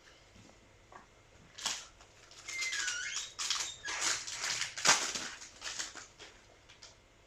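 Foil booster-pack wrapper crinkling and tearing open, with trading cards rustling and sliding against each other. It starts about a second and a half in and is busiest in the middle, with a brief squeak around three seconds.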